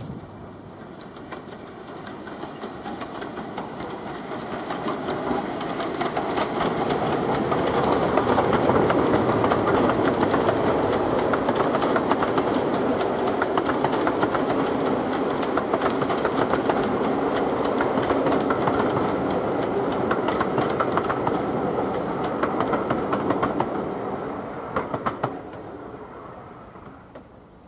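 Steam-hauled passenger train passing close by, its wheels clicking over the rail joints. It builds as the train approaches, stays loud while the coaches go by, then fades as the last coach leaves near the end.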